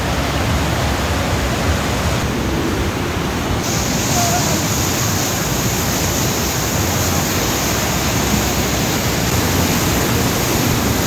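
Parvati River rapids: fast white water rushing over boulders in a steady, loud rush.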